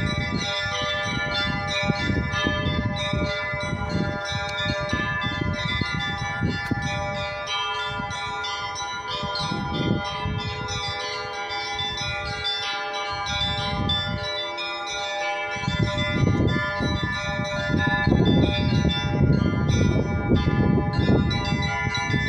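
Russian Orthodox church bells rung together: a dense run of strikes on the smaller bells over the lingering tones of the larger ones. It grows louder about two-thirds of the way through.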